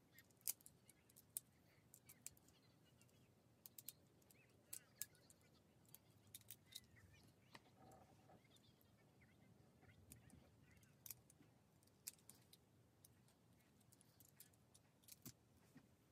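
Lego Technic pieces clicking and clattering as they are handled and pressed together. Faint, irregular sharp clicks are scattered throughout, bunched more thickly in the first half.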